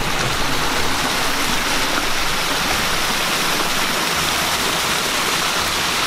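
Water of a small mountain stream cascading over rocks, a side branch of a waterfall: a steady rushing hiss.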